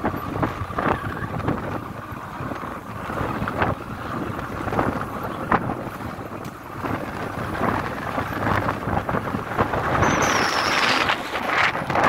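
Wind buffeting the microphone of a camera on a moving vehicle, a steady rush with crackling knocks, over the vehicle's running noise. About two seconds before the end the rush grows louder and a brief high tone sounds.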